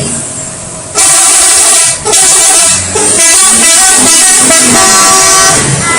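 Bus 'telolet' horn, a multi-tone musical air horn, playing a loud tune of changing notes. It starts about a second in, stops briefly twice, and cuts off just before the end.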